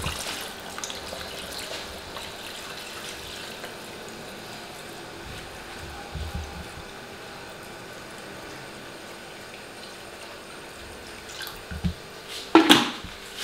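Water poured in a steady stream from a plastic jug into a wide pan of chicken curry on the stove. A sharp knock near the end.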